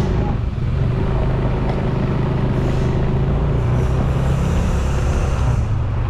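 Motorcycle engine running steadily at low riding speed, with a rough low rumble of road and wind noise over the bike-mounted microphone.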